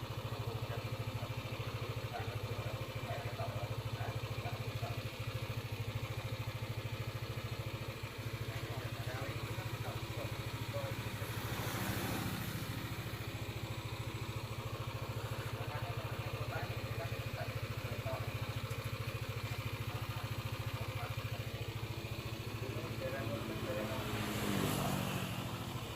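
Yamaha Aerox scooter's single-cylinder engine idling steadily, with two brief swells in engine sound, about halfway through and near the end.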